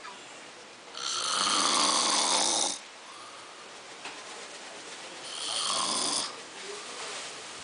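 A man passed out drunk, snoring heavily. There are two loud snores: a long one about a second in and a shorter one about five and a half seconds in.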